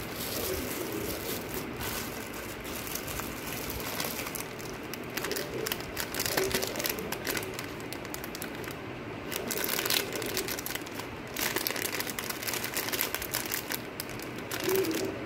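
Crinkling and crackling of packaging being handled, irregular and on and off, with busier, louder stretches toward the middle and end.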